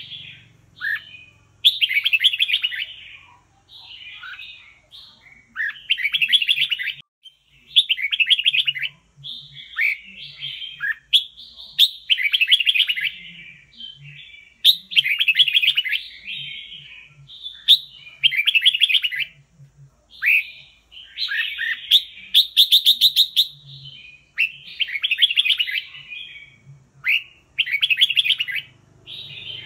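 Red-whiskered bulbul singing: short, loud, chattering whistled phrases repeated about every two seconds.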